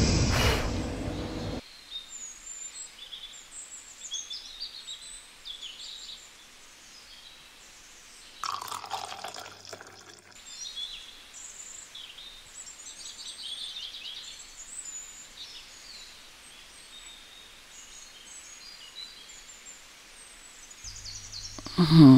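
Small birds chirping faintly, many short high calls scattered throughout, like a morning bird chorus. A louder sound cuts off about a second and a half in.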